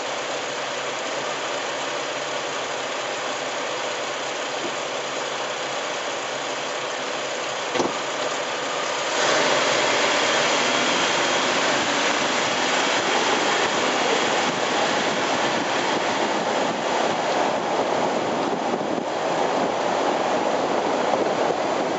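Road noise of a Jeep Wrangler LJ driving, heard from under the front axle beside the turning tyre: a steady rush of tyre and wind noise that gets louder about nine seconds in, with a single click shortly before.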